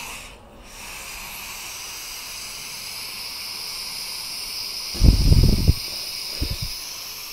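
Butane hissing steadily from a canister nozzle pressed into a homemade adapter to refill a butane pencil torch, breaking off briefly about half a second in, then running on. The adapter does not seal, so much of the gas escapes into the air. A few low thuds of handling come about five seconds in and again a second later.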